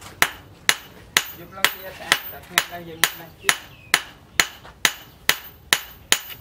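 Hand hammer forging a red-hot steel chisel blade on a steel post anvil: sharp, evenly spaced blows, about two a second.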